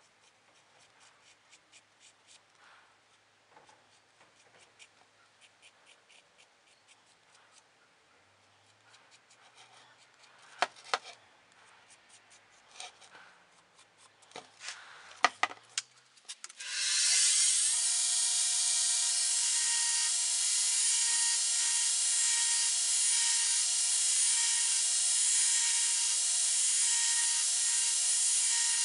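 Faint scratching of a felt-tip marker drawn over a steel axe blank, with a few sharp clicks of the metal being handled. Then, a little past halfway, a belt grinder starts, its whine rising as it spins up. It runs steadily and loudly as the steel axe head is ground against the belt.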